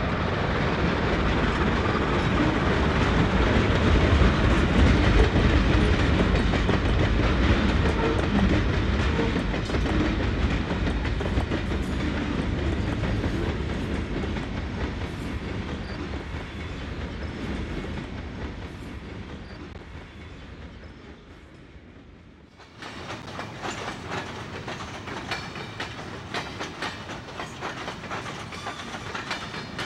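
A train passing at close range: a loud rumble that swells about four to six seconds in, then slowly fades away. About 23 seconds in it cuts abruptly to the rhythmic clickety-clack of railcar wheels over rail joints as cars roll past.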